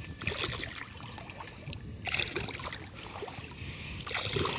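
Footsteps squelching and splashing through wet mud and shallow water, slow and careful, a step about every two seconds.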